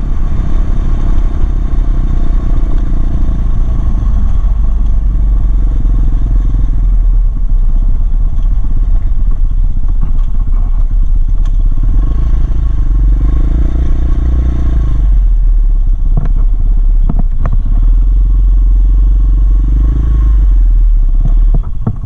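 Apollo DB36 dirt bike's engine running on a ride, the revs rising and easing off several times, over a heavy low rumble. A few sharp knocks sound about two thirds of the way through.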